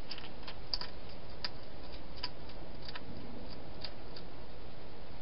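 A wild hedgehog feeding at bowls inside a clear plastic feeding box makes about ten sharp, irregular clicks, over a steady hiss.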